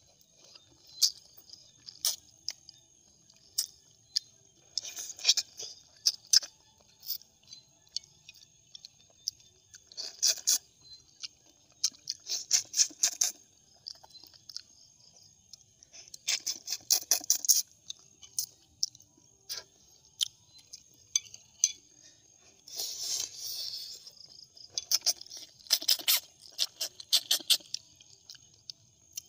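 A person eating boiled suckermouth (armored) catfish: wet mouth clicks and smacks of chewing, which come in short clusters every few seconds. A faint steady high tone runs underneath.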